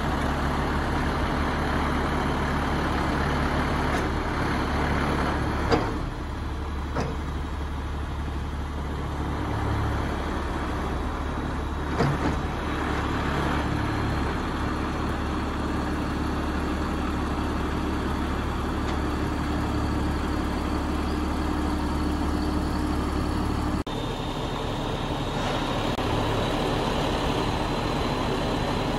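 Truck engine running steadily to drive the hydraulics of an HMF Z loader crane as the boom is raised and extended, with two sharp clacks about six and twelve seconds in. Near the end a faint high steady whine rises above the engine hum.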